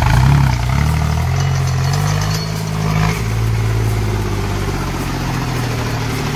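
Sonalika DI-35 tractor's diesel engine running, its pitch climbing and wavering through the first few seconds before settling steady.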